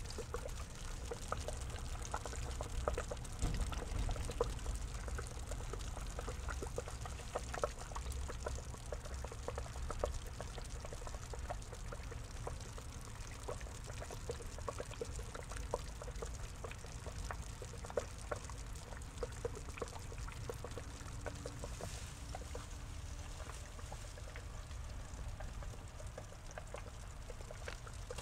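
Water pouring and trickling steadily into a small garden pond, with many small splashes and drips over a low rumble.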